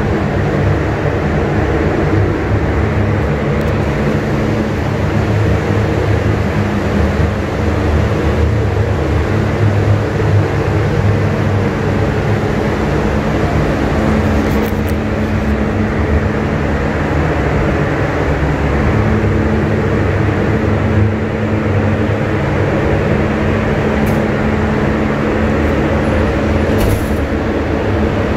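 Paint booth ventilation fans running: a loud, steady drone with a low hum under it.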